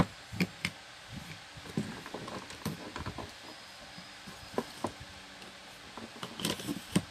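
Metal parts of a stand fan motor being handled and fitted together: irregular light clicks and knocks as the rotor shaft is moved in its bushes and the end cover set in place to check the end play. A sharper knock at the start and a cluster of knocks near the end.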